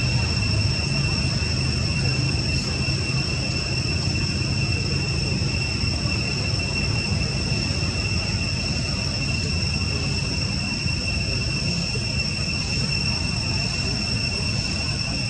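Steady high-pitched drone of insects with no break, over a constant low rumble.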